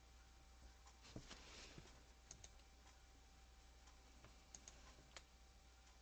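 Near silence with a few faint, scattered clicks of a computer keyboard and mouse over a faint steady hum.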